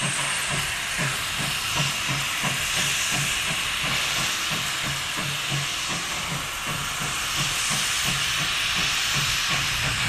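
Baldwin steam locomotive No. 3 working slowly, its open cylinder cocks blowing a loud, steady hiss of steam over an even exhaust beat of about three chuffs a second.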